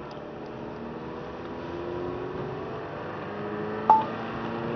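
A car running on a wet road, heard from inside the cabin, the engine note climbing about two seconds in. About four seconds in, one short, sharp electronic beep with a click.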